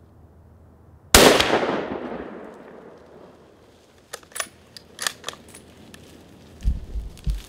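A single deer-rifle shot about a second in, its report echoing away over about two seconds. It is followed by a few short sharp clicks and, near the end, some low thumps.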